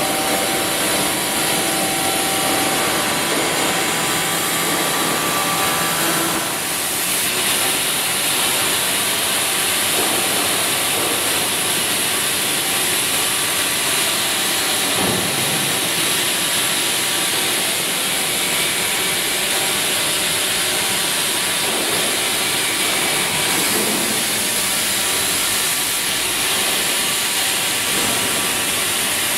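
CNC machining centre running, its end mill cutting the blade profile into a steel cutter roll: a steady hissing machine noise with no distinct strokes.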